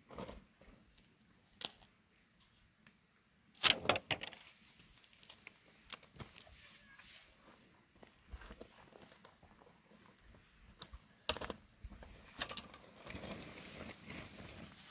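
Grain being scraped by hand and handled in a metal basin: scattered clinks and clatters, the loudest about four seconds in, then a grainy rustling near the end.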